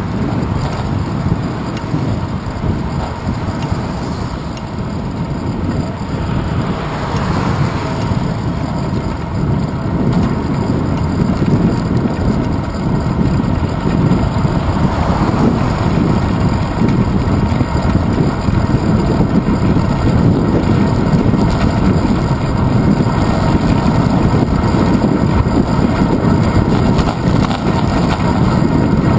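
Wind buffeting the microphone of a handlebar-mounted GoPro on a moving bicycle, a steady low rumble mixed with road noise; a car passes about seven seconds in, and the rumble grows a little louder after that.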